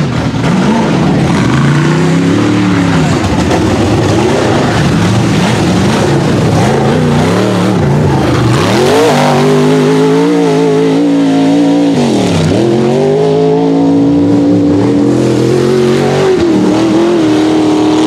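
Rock-bouncer buggy engines revving hard, pitch swinging up and down again and again as the throttle is worked. Several engines overlap in the first half; near the end one engine holds steady at high revs.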